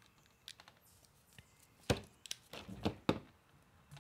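A hand crimping tool and thin wire being worked while a terminal pin is crimped on: a few faint clicks in the first second, then a cluster of louder, sharp clicks in the second half.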